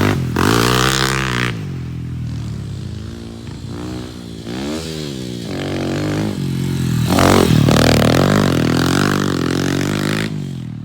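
ATV engine revving hard on a dirt track, its pitch climbing and dropping over and over as the throttle is worked. It is loudest in the first second or so and again from about seven seconds in, then fades near the end.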